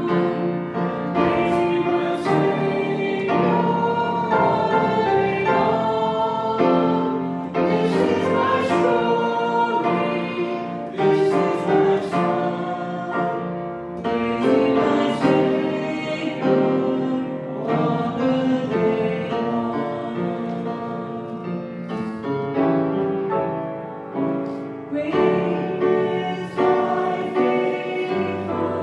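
A woman singing a worship song at a microphone, amplified in the room, with piano accompaniment.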